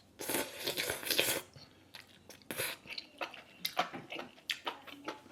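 A person eating close to the microphone: a noisy stretch of about a second near the start, then chewing with many short, wet clicks and smacks.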